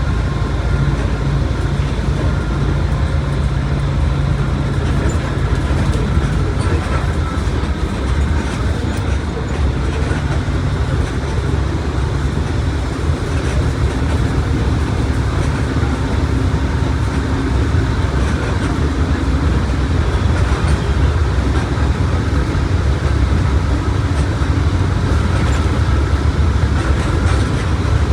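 Mercedes-Benz OF1721 BlueTec 5 bus under way: a steady engine and drivetrain drone with road noise.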